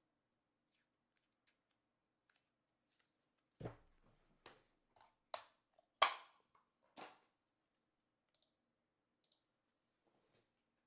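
Hands picking up and handling small card boxes and plastic trading-card holders: a cluster of sharp clicks and taps in the middle, the loudest about six seconds in, with a few faint ticks before and after.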